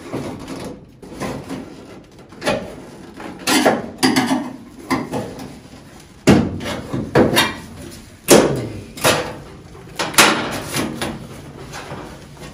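Sharp metal knocks on the steel floor pan around the freshly tack-welded accelerator pedal mount, a dozen or so at uneven intervals, each ringing briefly.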